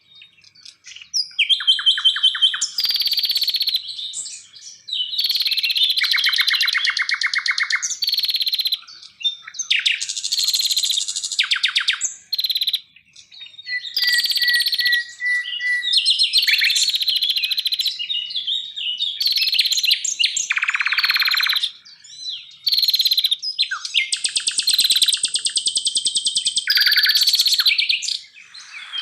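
Songbirds singing one after another in quick succession: fast trills, chattering runs and whistled phrases, with a held whistle about halfway through and a few short pauses.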